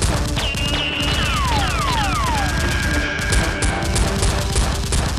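Background action music with a steady beat, mixed with dubbed gunfire sound effects. A run of falling-pitch sweeps comes in the first half.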